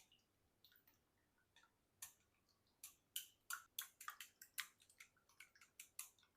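Light, sharp clicks of kitchen utensils, a few scattered ones at first, then a quick irregular run of taps from about three seconds in.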